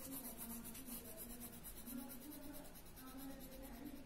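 Coloured pencil scratching across paper in rapid short back-and-forth strokes, faint.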